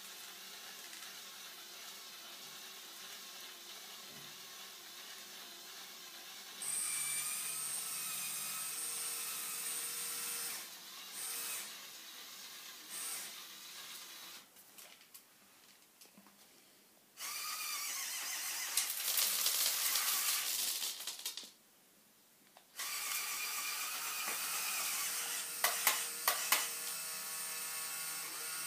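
The electric motors and plastic gearing of a motorised Lego Technic 42100 Liebherr R 9800 excavator whirring as it moves, in stretches of a few seconds that start and stop, beginning about six seconds in. A few sharp clicks come near the end.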